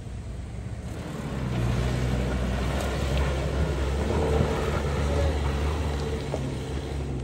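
Toyota Surf 4x4's engine pulling hard under load as it climbs a loose dirt slope, growing louder about a second in and easing off a little near the end.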